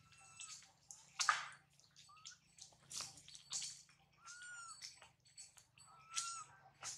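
Macaques moving and picking about in a tree: short scratching and rustling noises, the loudest about a second in, mixed with a few brief high squeaky calls.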